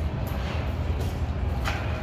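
Steady low background hum of room noise, with one short click about a second and a half in.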